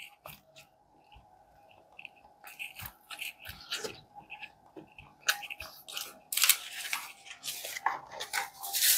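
Close-miked chewing of a mouthful of McDonald's barbecue bacon Angus burger: irregular wet mouth clicks and soft crunches, sparse at first and denser and louder later on. Near the end, hands rustle in the cardboard burger boxes.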